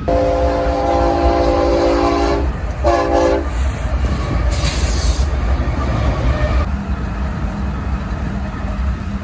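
Diesel locomotive air horn sounding a chord, a long blast and then a short one, over the rumble of a passing train. A brief hiss comes about five seconds in.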